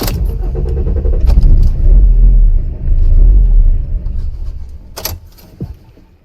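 Car engine running rough, its rumble surging and falling with the gas pedal pumped, then dying away in a stall: it will not hold an idle. A sharp click about five seconds in.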